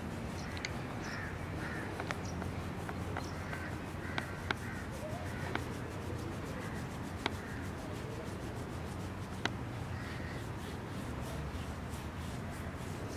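A hand rubbing a puppy's fur close to the microphone, with faint animal calls now and then in the background and a few small sharp clicks.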